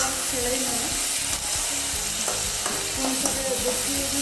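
Flat beans and potato slices sizzling as they fry in oil in a metal kadai, stirred with a metal spatula that scrapes against the pan a few times.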